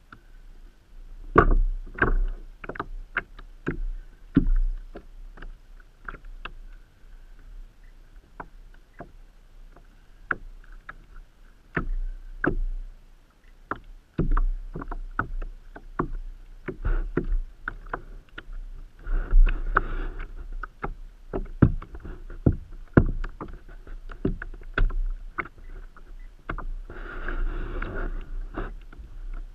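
Irregular knocks and taps on a kayak, sharp and scattered, with two longer bursts of rushing noise about twenty seconds in and near the end.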